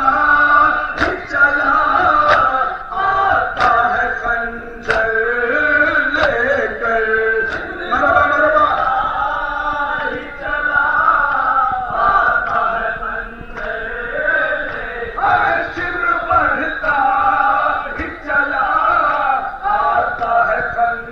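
Men's voices chanting a Muharram mourning lament (noha), with sharp slaps of hands striking chests in unison about once every second and a quarter. The slaps thin out after about eight seconds while the chant goes on.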